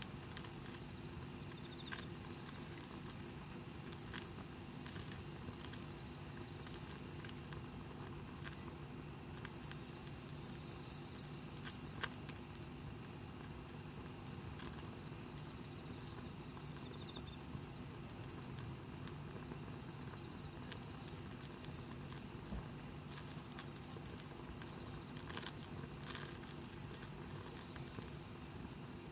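Wood campfire crackling, with scattered small pops over a steady hiss. A high hiss cuts off suddenly about seven seconds in.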